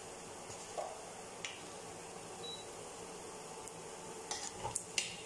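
Sliced onions and ginger frying in coconut oil in a pan, with a faint steady sizzle. Near the end a metal spoon clinks and scrapes against the pan several times as stirring starts.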